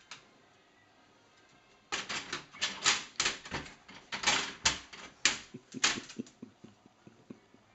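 Plastic dog flap rattling and knocking in an irregular flurry as a cocker spaniel pushes at it with a French breadstick held crossways in its mouth, the loaf too wide to pass. The knocks start about two seconds in and die away after about four seconds.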